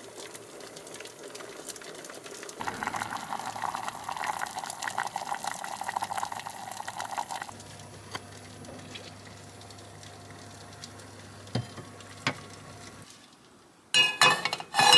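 Cooking on a gas stove: soup bubbling and crackling in a pot, strongest for about five seconds after the first few seconds. It gives way to a steady low hum with a couple of single clicks, and loud clinks of metal cookware come near the end.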